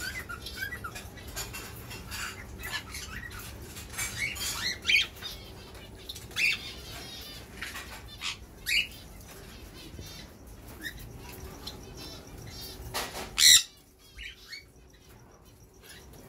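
Cockatiels calling with many short chirps and squawks, one after another, with one loud burst near the end followed by a quieter stretch.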